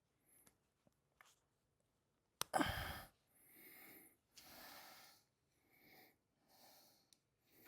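A man's breathing close to a clip-on microphone: a sharp click about two and a half seconds in, a sigh with a falling pitch, then several slow, faint breaths in and out.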